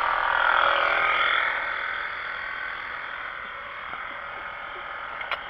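A steady chorus of calling animals, loudest in the first two seconds and then easing off.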